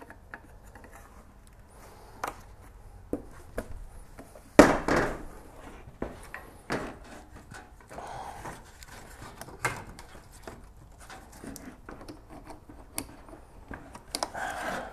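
Plastic headlight housing of a New Edge Mustang being worked into its mounting, with scattered clicks and knocks of plastic against the body and one loud thump about four and a half seconds in.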